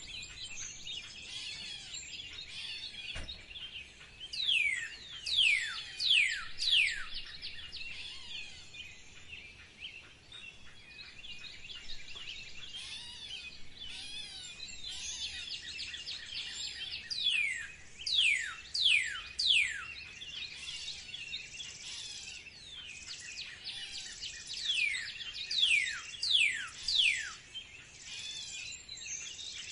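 Birds singing: one bird gives runs of four or five loud whistled notes, each sweeping sharply downward, about three notes every two seconds, three times over, against a continuous background chorus of other birds chirping.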